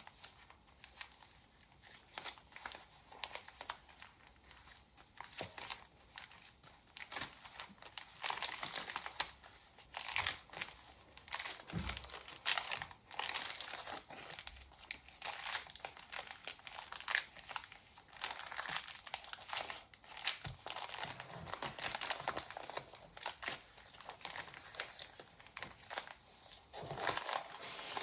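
Paper rustling and crinkling in quick, irregular handling noises: the folded paper-bag pages of a handmade junk journal being opened and turned.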